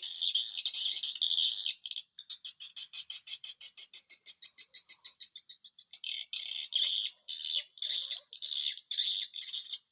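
Swiftlet calls: high twittering chirps, with a fast run of clicks at about eight a second through the middle.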